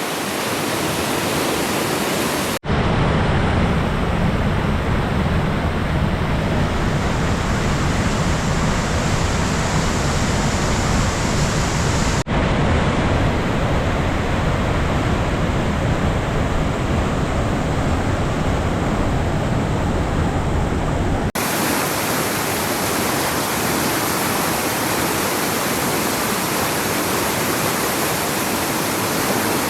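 Large waterfall in heavy flow after prolonged rain: a loud, steady rush of falling water. The sound shifts suddenly a few times, much heavier in the low end between about 3 and 21 seconds in.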